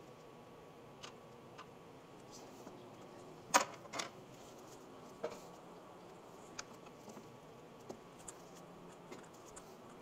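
Scattered light clicks and clinks of hand tools on the metal parts of a snowmobile engine, with a sharp metal clank about three and a half seconds in and a second one half a second later, over a faint steady hum.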